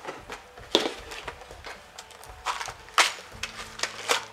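Hands handling small craft supplies on a work table: a series of irregular sharp clicks, taps and rustles, the loudest about three-quarters of a second in and around three seconds in.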